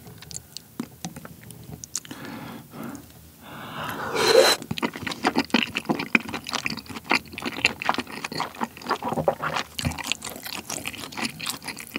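Close-miked wet eating sounds: a few light clicks of chopsticks in the creamy sauce, a loud slurp about four seconds in, then dense, sticky, wet chewing of chewy kiri mochi in cream sauce with bacon and green chili.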